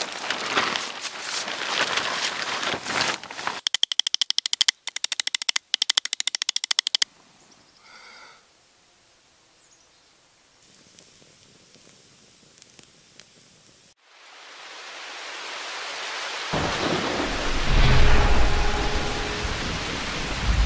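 A thunderstorm: rain hiss swells up, and a deep thunder rumble joins it and builds to the end. Before it come a few seconds of rustling noise, then a rapid run of sharp clicks, then a quiet stretch.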